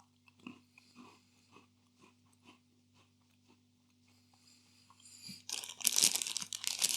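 Faint chewing of Mini Cheddars baked cheese crackers, then from about five seconds in a loud, dense crackling of crunching and crinkling from the snacks and their packet.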